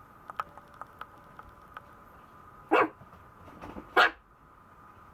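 Maltese puppy giving two short barks, about a second apart, midway through.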